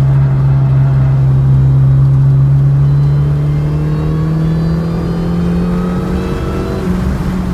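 Mini Cooper S (R53) supercharged 1.6-litre four-cylinder pulling hard, its engine note climbing slowly in pitch as the car accelerates, with a faint high whine rising along with it.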